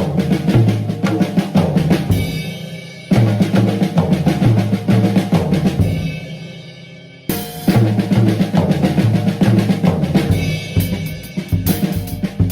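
Drum kit playing a groove in 7/4 time on bass drum, snare and cymbals, built on triplet figures with a Swiss Army triplet and flam-accent break. A cymbal rings out after the strokes about two and six seconds in.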